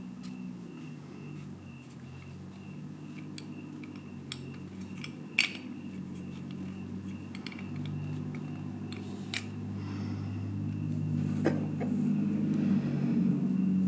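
A few sharp, light clicks of a wooden handle being worked onto a razor sharpener's metal crank arm, over a low droning hum that slowly grows louder.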